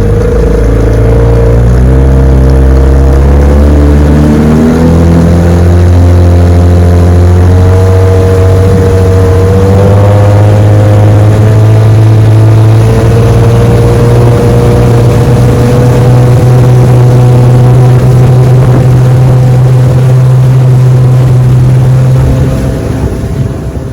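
1966 Evinrude 9.5 hp two-cylinder two-stroke outboard running a boat under way, its pitch rising over the first few seconds as it is throttled up, then holding steady at speed. It fades out near the end.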